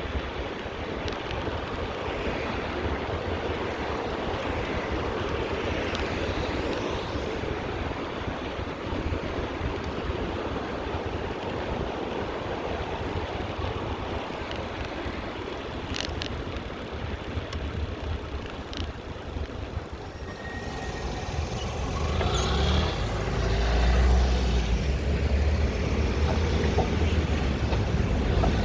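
City road traffic heard from a moving bicycle, a steady wash of tyre and engine noise with wind on the microphone. About three quarters of the way through, a deep engine rumble of a heavy vehicle swells and grows louder.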